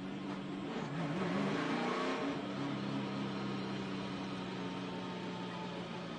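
NASCAR Cup car's V8 engine heard from on board the car, running at a steady low pitch. About a second in, it briefly rises and wavers in pitch and gets louder, then settles back to a steady drone.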